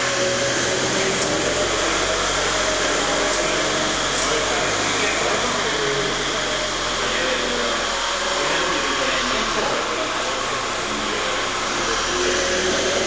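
Linde forklift truck running and driving with a load, a steady noisy hum with a faint wavering tone in it.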